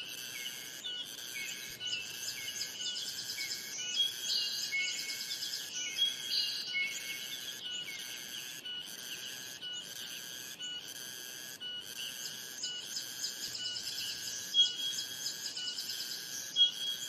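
Nature ambience of birds singing and chirping over a steady high tone that pulses about twice a second.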